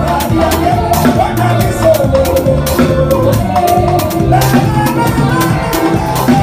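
Live band music, with a drum kit keeping a busy beat of drum and cymbal hits under a melody line.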